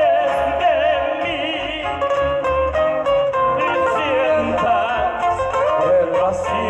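Live Ecuadorian música nacional: male voices singing in harmony with vibrato over two acoustic guitars, one picking a high melodic lead line.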